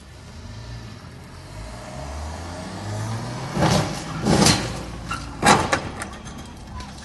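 A car engine accelerating, its low hum rising in pitch over the first few seconds. Three loud, short bursts of noise follow in quick succession past the middle.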